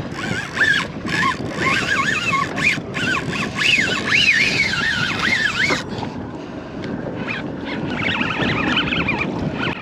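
Wind buffeting the microphone on a boat at sea, with a wavering high-pitched whine that rises and falls over and over for about the first six seconds and then stops.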